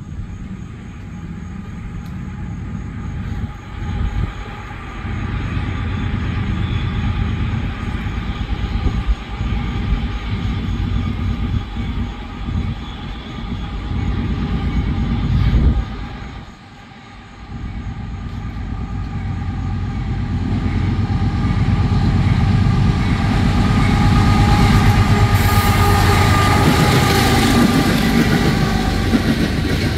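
Norfolk Southern freight train with two GE diesel locomotives (the trailing unit an ES44AC) approaching and passing close by. The engines' steady rumble grows louder over the last ten seconds as the locomotives draw level.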